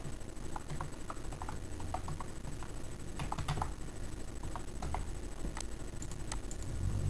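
Typing on a computer keyboard: irregular quick keystrokes as numbers are entered, with a fast run of keys about three seconds in.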